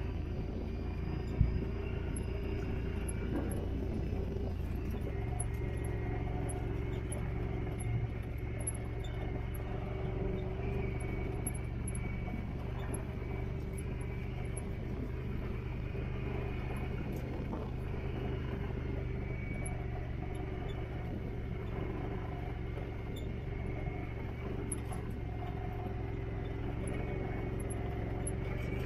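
Off-road vehicle engine running at a steady low drone while being ridden, with a sharp knock about a second and a half in and a lighter one a few seconds later.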